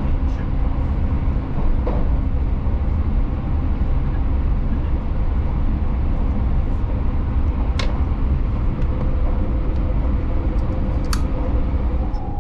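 Steady low rumble of the Keisei Skyliner limited express running on the line, heard inside the passenger cabin, with two short sharp clicks about eight and eleven seconds in.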